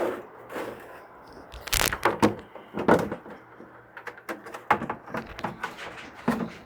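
Handling noise from the parts of a plastic hydroponic grow unit: a series of irregular knocks and clunks as parts are fitted and set in place, the loudest about two and three seconds in.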